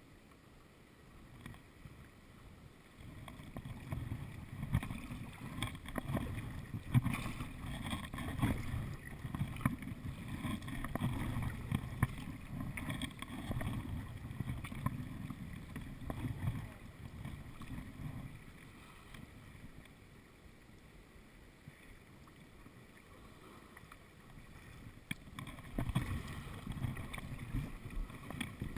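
Paddling a tandem kayak: paddle blades splashing and water washing along the hull, with wind rumble on the microphone. Louder through the first half, quieter later, with a short rise near the end.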